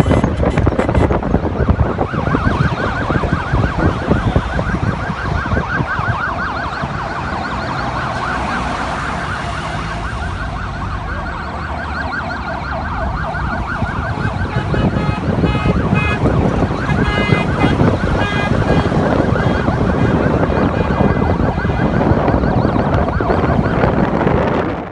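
Police sirens sounding in a fast warble, joined after about fifteen seconds by steadier sounding tones, over heavy wind buffeting the microphone and passing road traffic.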